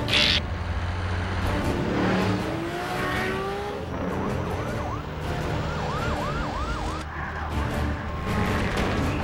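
Vehicle engines with a steady low rumble. Over it come rising whines, then a quick run of up-and-down, siren-like wails about five to seven seconds in.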